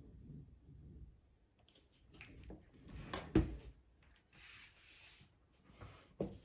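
Light handling of a laptop during reassembly: faint rubbing and a few small plastic clicks and knocks, the sharpest about three and a half seconds in and another near the end.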